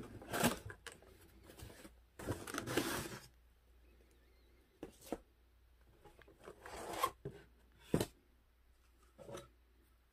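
Corrugated cardboard packaging scraping and rustling as the saw is worked out of its box insert, with a few short, sharp knocks of the tool against the cardboard in the second half.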